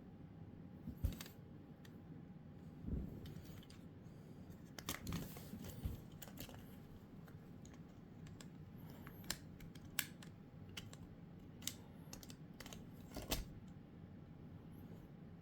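Scattered light clicks and small handling noises of hands working on a PS4 controller, with sharper clicks about a second in, around three, five and ten seconds in, and near the end, over a faint steady hum.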